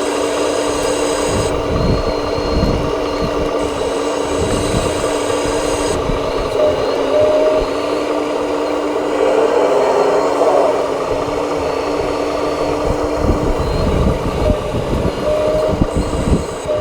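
Small electric motors and gearboxes of radio-controlled construction models running: a steady whine, with higher whines that switch on and off every few seconds and scattered knocks and scrapes.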